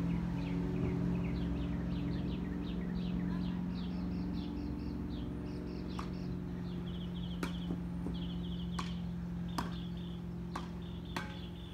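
Tennis ball struck back and forth: sharp knocks about once a second from about halfway in. Under them runs a steady low hum, and a bird sings a run of quick descending chirps, then a repeated trill.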